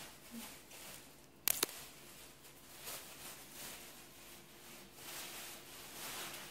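Faint rustling and handling noise, with one sharp double click about a second and a half in.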